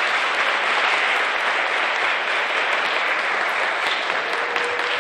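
Audience of schoolchildren applauding steadily after students are honoured.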